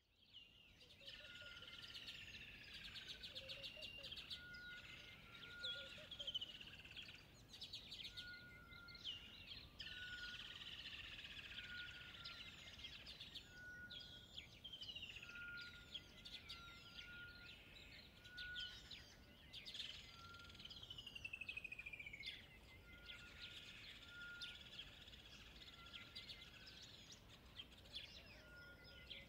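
Faint birdsong from several birds: chirps, trills and falling twittered phrases over a short high note repeated about once a second. It fades in during the first second.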